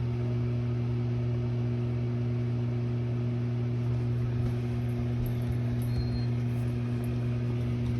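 Bosch HMC54151UC microwave speed oven running: a steady low electrical hum with higher overtones.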